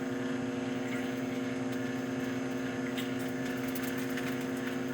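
Farberware microwave oven running mid-cook: a steady electrical hum with the fan going, unchanging throughout.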